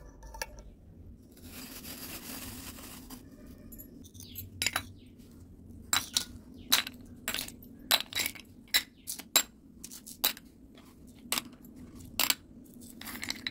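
Tiny clay bricks dropped one at a time into a small bowl, each landing with a sharp clink, about fifteen in all at an uneven pace. A short rustle of handling comes before the clinks begin.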